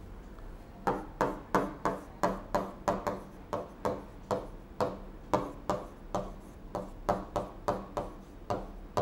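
Pen writing on an interactive board's screen: a quick run of short taps and scrapes, about three a second, as the words are written out letter by letter.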